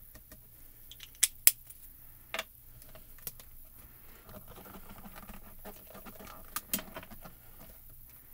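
Clear acrylic door of a MISTI stamp positioning tool closed over a card, with a clear stamp on it: two sharp plastic clicks about a second in, then a few lighter taps and soft rubbing as hands press the stamp down.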